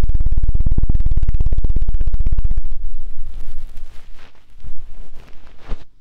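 Hands patting rapidly and evenly on the ears of a binaural dummy-ear microphone: the ASMR 'helicopter' ear-cleaning trigger, a fast, loud, deep thumping rhythm. A little under three seconds in it stops and gives way to softer, irregular rubbing and brushing on the mic ears.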